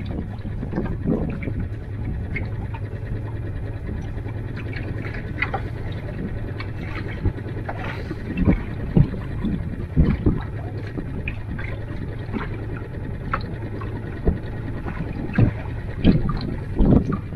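Small waves lapping and slapping irregularly against a boat's hull, over a steady low rumble.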